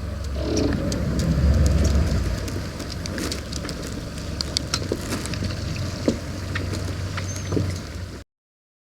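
An engine idling with a steady low hum, with scattered knocks and clatter over it; the sound cuts off abruptly near the end.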